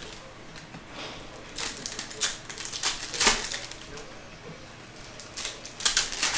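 Trading card pack wrappers crinkling and tearing open while cards are handled, in quick clusters of crackling rasps about a second and a half in and again near the end.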